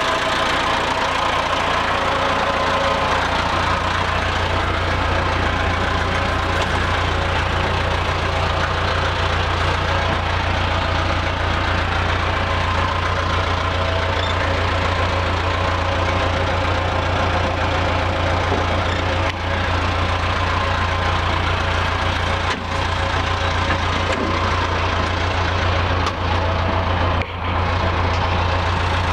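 Diesel engine of a Caterpillar 416 backhoe loader idling steadily.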